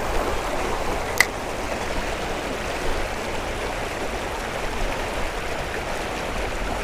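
Steady rush of flowing river water, with a single sharp click about a second in.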